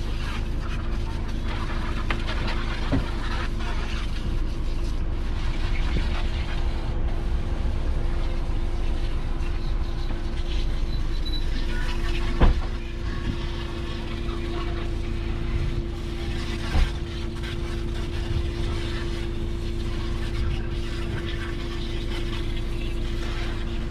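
A steady engine hum over a low rumble, with a sharp knock about halfway through and another a few seconds later.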